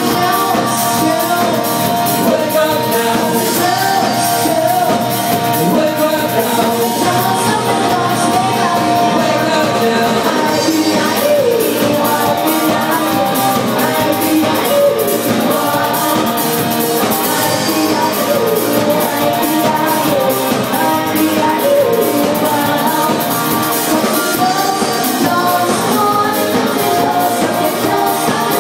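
Live pop-rock band music with a woman singing lead into a microphone, drums and other instruments playing under her voice without a break.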